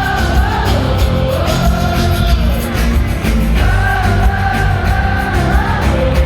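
Pop-rock music with a steady beat and a strong bass line, under a wordless sung vocal hook of long, wavering held notes that repeats every couple of seconds.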